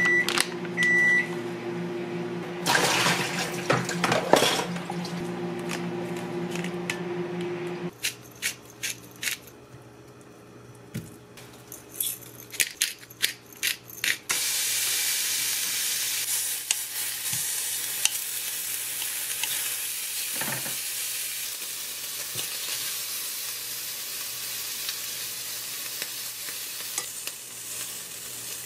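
Kitchen preparation sounds. A steady low hum comes with some handling noise at first, then a run of sharp clicks and knocks from utensils and dishes. From about halfway there is the even hiss of a beef steak sizzling in a frying pan.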